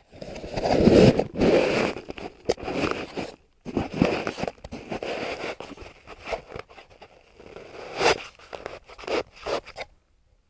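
Close rustling, scraping and crunching of objects being handled, in irregular bursts for nearly ten seconds, with a few sharper clicks.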